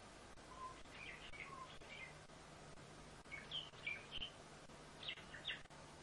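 Pet common starling giving a run of short chirps and whistles, some of them sharp and high, the strongest near the end.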